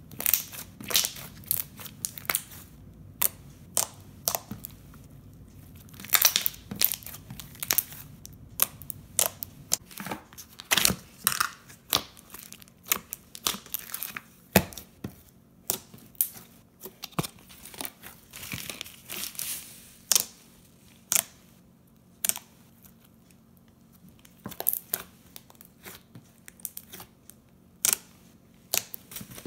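Slime being squeezed, stretched and poked by hand, making irregular sharp pops and crackles.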